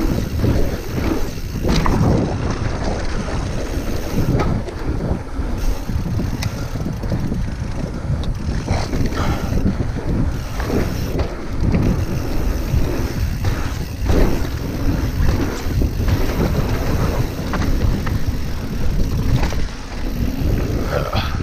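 Mountain bike descending a dirt and gravel trail: wind buffeting the handlebar-mounted microphone over the rolling rumble of tyres on loose ground, with frequent knocks and rattles from the bike as it goes over bumps.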